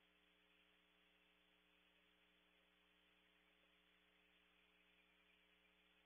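Near silence: only a faint steady electrical hum and hiss from the recording.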